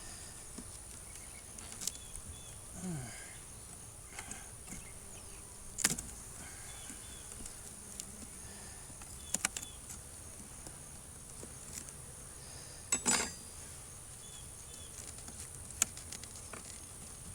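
A steady high-pitched insect drone, with a few sharp clicks and knocks from wooden hive frames and the hive box being handled during the inspection.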